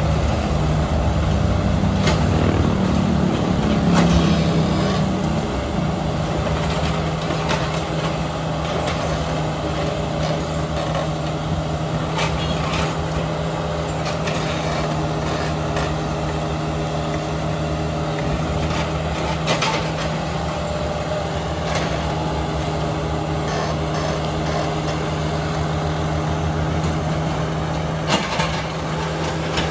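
Hyundai 55W-9A wheeled mini excavator's diesel engine running steadily under hydraulic load while digging, louder for a few seconds near the start, with occasional short knocks.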